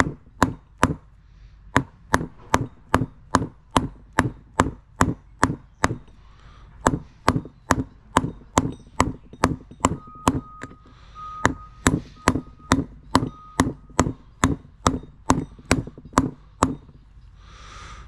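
Small hammer tapping a new sealed bearing into a motorcycle's rear sprocket drive hub, steel striking steel: steady light taps, about two to three a second, worked around the bearing's edge to drive it down into its bore, with a couple of short pauses.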